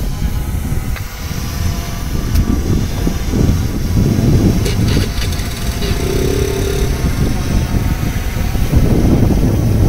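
Strong wind gusting over the microphone, a loud low rumble that swells and fades throughout.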